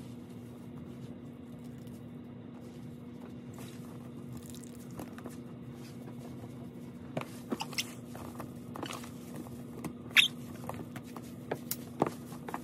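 Hands crumbling and spreading damp coconut coir in plastic bins: soft rustling and crunching, with a few sharp clicks and taps near the end, the loudest about ten seconds in. A steady low hum sits underneath.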